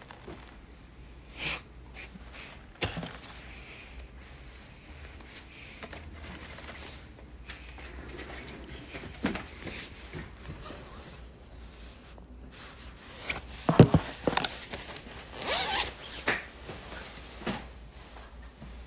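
A zipper being run and a padded nylon jacket rustling, among scattered knocks and rustles of handling. The loudest stretch, a group of sharp knocks followed by a rasping rustle, comes about three quarters of the way through.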